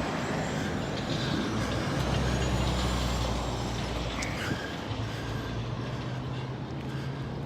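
Motor vehicle running in street traffic: a steady low rumble that swells about two seconds in and eases off after about four.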